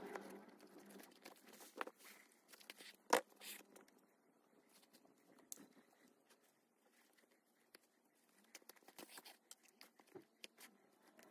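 Faint rustling and scattered small clicks of hands stitching a coonskin-and-leather hat with needle and thread, with one sharper click about three seconds in.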